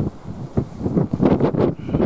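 Strong gusty wind buffeting the microphone, coming in irregular rushes and rumbles.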